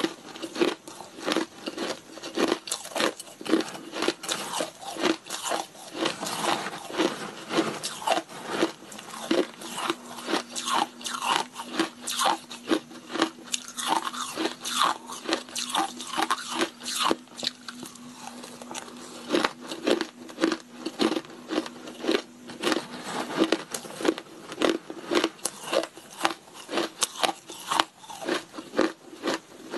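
Shaved and crushed ice being bitten and chewed close to the microphone: a fast, irregular run of crunches, several a second.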